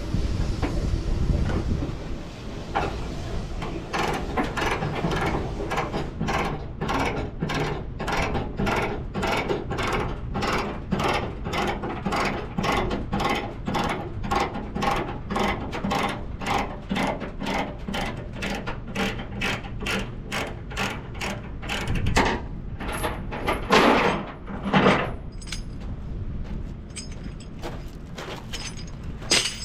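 Ratchet chain binder being cranked to slacken a tie-down chain on a flatbed trailer: a steady run of ratcheting clicks, about two a second, then two louder clanks near the end.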